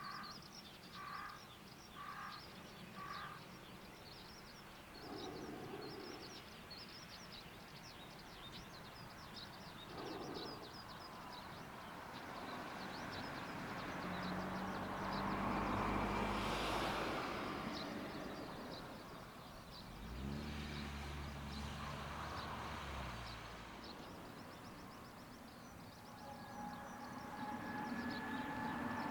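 A crow cawing four times about a second apart, then a Hojo Railway diesel railcar approaching and passing, its running noise swelling to a peak about halfway through, with the low steady sound of its engine about twenty seconds in. Small birds chirp throughout.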